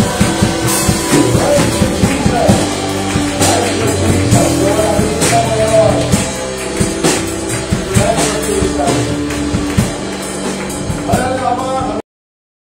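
Live band playing a rock-style praise song, with drum kit, electric guitars and bass and a man singing through a microphone; the audio cuts off suddenly near the end.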